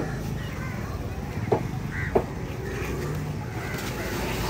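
Crows cawing over a steady low rumble, with two sharp knocks about two-thirds of a second apart near the middle.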